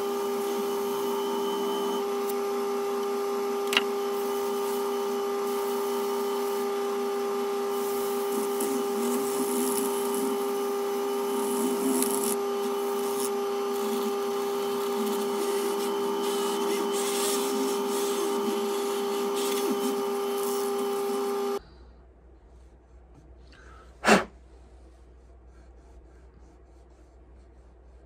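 Woodturning lathe running with a steady motor whine while a spinning wood-and-resin bowl is sanded, the sanding hiss growing rougher in the middle. The running cuts off abruptly about three quarters of the way in, followed by a single sharp knock.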